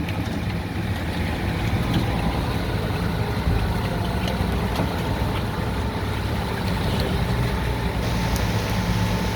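Heavy truck engine running steadily, a low continuous hum.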